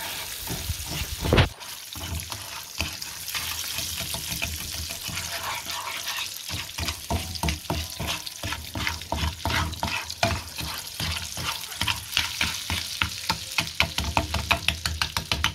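Butter and sugar sizzling and crackling in a frying pan while a wooden spoon stirs and taps against the pan, with one loud knock about a second and a half in.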